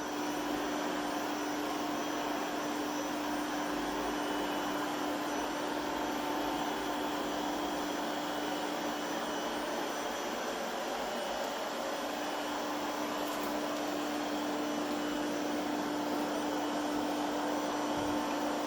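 PREMBOT P3 robot vacuum cleaner running, its suction motor and brushes giving a steady hum with a constant tone.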